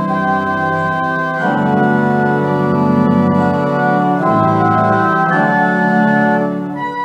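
Church organ playing slow, sustained chords that change every second or two, over a low bass line that drops in and out.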